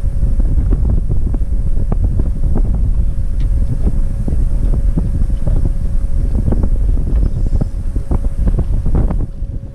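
Wind buffeting the action camera's microphone, loud and gusty, with a faint steady hum underneath.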